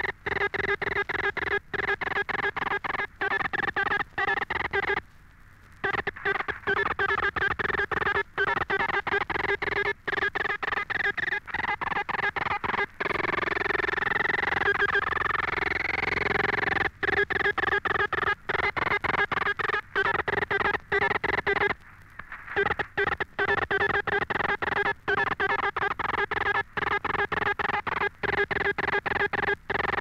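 High-speed Morse code radio signal at 65 words per minute: a tone keyed on and off in very rapid dots and dashes, with two short pauses about five and twenty-two seconds in.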